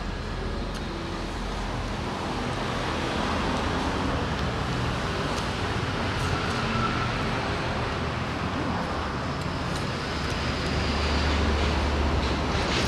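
Steady road traffic noise, with a low rumble that swells near the end as a vehicle passes.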